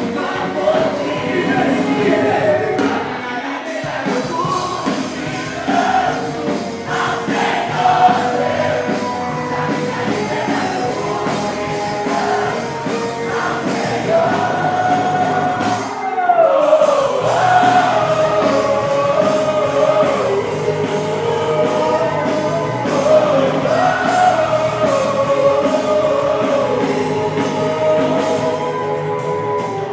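Live Christian worship band playing with sung vocals, guitar and drums under a singing voice.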